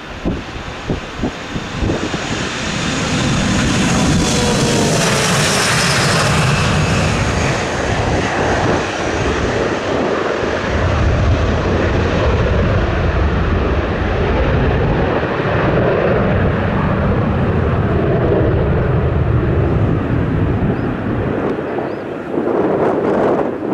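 Airliner's engines running loud as it passes close by. The roar builds over the first few seconds, a high whine falls in pitch as it goes past, and a heavy low rumble carries on before dipping briefly near the end.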